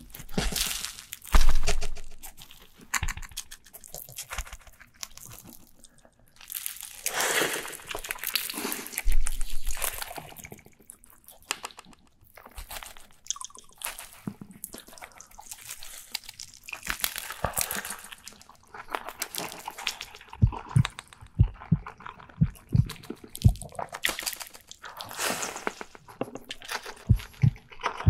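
Close-miked ASMR eating sounds of a large double cheeseburger: the soft bun pressed down under a hand, then big bites and chewing. From about two-thirds of the way in, the chewing settles into a steady rhythm of roughly two chews a second.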